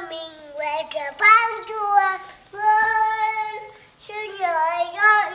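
A toddler singing to herself in a high voice, holding long notes in short phrases with brief pauses between them.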